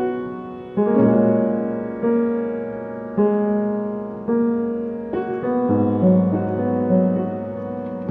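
Piano introduction to a slow song, sustained chords struck about once a second and left to ring down, with a bass line entering near the end.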